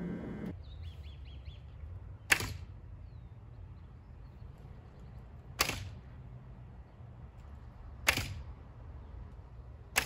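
Pacific yew English longbow being shot four times, a few seconds apart: each release gives a sharp snap of the string with a short ringing after it.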